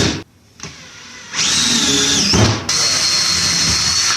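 Power drill backing screws out of wooden boards, running in short bursts: one ending just after the start, then two longer runs back to back from about a second and a half in, each with a steady high motor whine.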